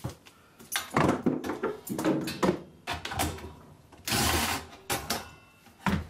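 Clatter of metal tools and parts being handled on a lawnmower engine as the recoil starter is unbolted: a run of separate knocks and clicks, with one short, harsher burst about four seconds in.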